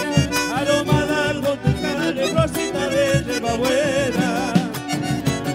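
Live folk band playing a chacarera: strummed acoustic guitars and accordion over a steady drum beat, with a wavering melody line on top.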